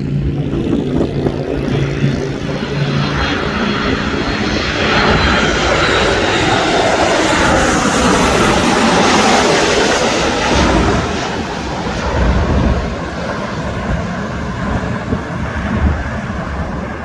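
Jet airliner passing close by: engine noise and rumble swell to a peak midway and then fade, with a high whine falling in pitch as it goes past.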